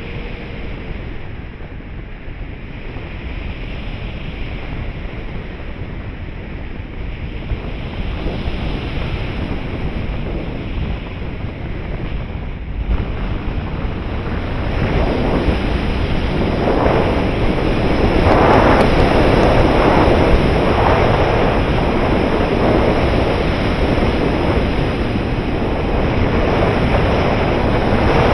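Airflow rushing over the microphone of a camera mounted on a 3.6 m RC glider in flight, with no motor heard. The rush grows steadily louder from about halfway through.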